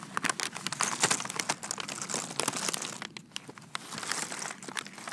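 Paper bag of pistachios crinkling and rustling as it is handled and lifted, the nuts shifting inside, with a short lull about three seconds in.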